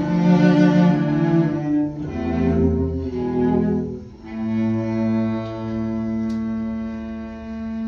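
Cello bowed live: a few notes moving downward, then one long low note held for about four seconds.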